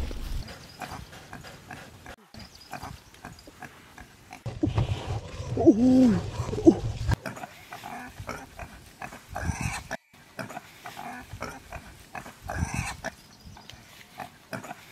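A trussed pig squealing. One loud, pitched call rises and falls about halfway through, among scattered small clicks and rustles.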